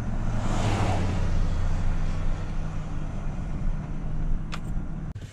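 Pickup truck's engine and road noise heard from inside the cab while driving, a steady low hum. About half a second in, an oncoming truck passes with a brief rising and falling whoosh. There is a short click near the end.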